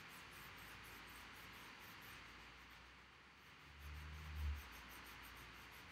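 Faint, steady rubbing of a paper blending stump over graphite shading on drawing paper. A brief low bump about four seconds in.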